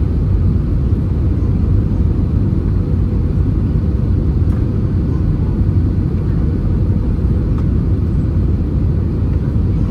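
Steady low rumble inside the cabin of an Airbus A320-200 on final approach: engine and airflow noise heard from a window seat just behind the wing.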